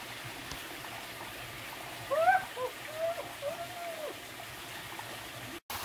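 Steady rush of a stream, with a few short high gliding vocal sounds from about two to four seconds in, the loudest about two seconds in. The sound drops out abruptly for a moment near the end.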